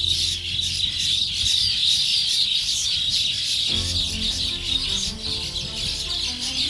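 Small birds chirping continuously in a dense chorus over a soft background music score; the music's low held notes drop away and come back in about four seconds in.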